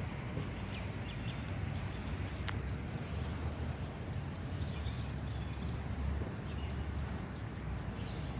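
Outdoor ambience: a steady low rumble with faint, scattered bird chirps high above it, and one sharp click about two and a half seconds in.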